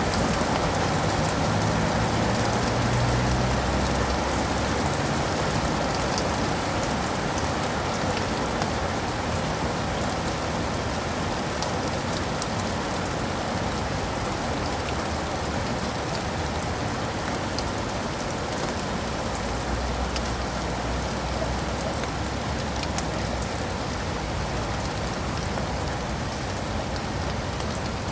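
Steady rain falling on leaves and pavement, with many small drops ticking through it. A low rumble sits under it in the first few seconds and again about two-thirds of the way through.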